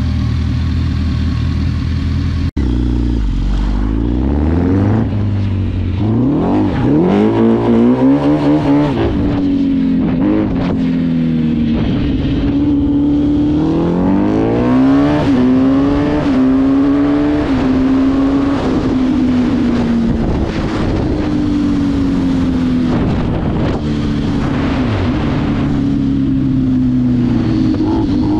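Yamaha Raptor quad's Yamaha R1 (RN19) four-cylinder engine. It idles briefly, then accelerates hard through several gears, the revs climbing and dropping at each quick shift, and then runs at high speed with the revs rising and falling.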